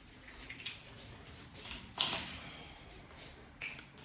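A few light, sharp clicks over quiet room tone, the loudest about two seconds in and another near the end.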